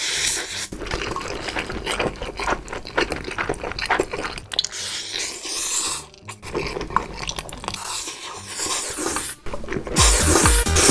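Close-miked slurping and chewing of noodles, wet and irregular. About ten seconds in, a loud bass-heavy music beat starts.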